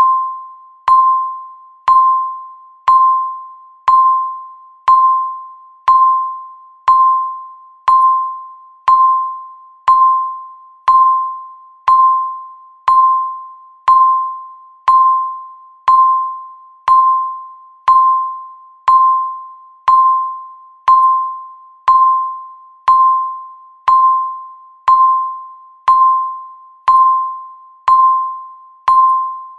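Countdown timer beeping once every second: a single bell-like tone that strikes sharply and fades away before the next, in an even, unchanging rhythm.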